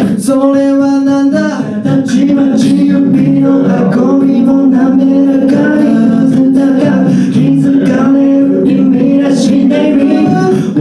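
An a cappella vocal group singing, several voices holding chords in harmony with no instruments.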